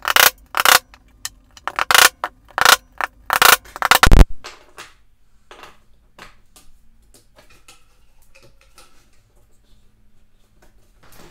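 Hammer driving small staples into a pine board over LED light-string wires: a quick run of sharp taps for about four seconds, then only faint light clicks and handling.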